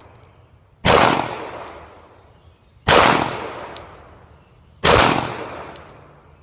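Three single shots from a 9mm Glock 17 pistol, fired about two seconds apart, each with a long fading echo. A light metallic clink follows each shot, the spent brass case landing.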